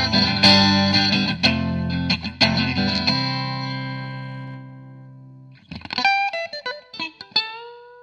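Electric guitar played through a small Marshall MG10CD practice amp, picked up by a dynamic mic against the grille and a condenser mic. Full chords ring out and fade over about five seconds, then a run of single picked notes starts.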